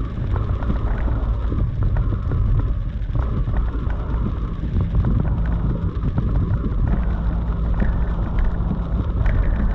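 Hard rain and strong wind against a moving vehicle, heard from inside the cabin over a steady low rumble.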